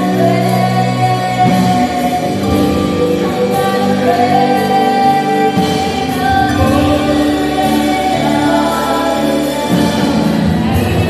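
Gospel worship song: voices singing over sustained instrumental chords, continuous and steady in level.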